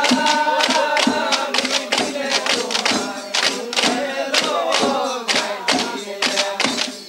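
Bihu song: group singing over a drum beaten in a quick, even rhythm.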